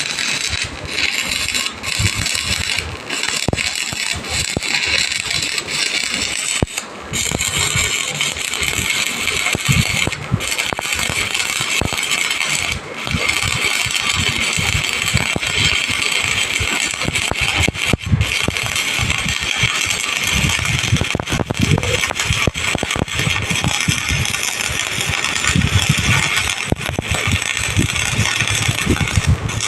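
Electric arc welding: a steady crackling hiss from the arc, with brief dips about seven and thirteen seconds in.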